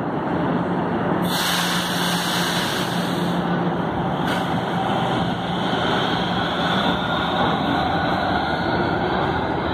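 Metro train (fleet K, car K25) pulling out of the station and picking up speed, its running noise steady with a faint whine that slowly rises in pitch. About a second in, a hiss of air sounds for a couple of seconds.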